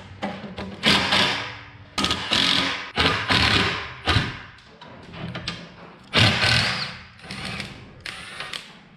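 Cordless impact driver running in short bursts of about a second each, several times over, as it backs out the rusted bolts holding down the top plate of a vintage Clark forklift.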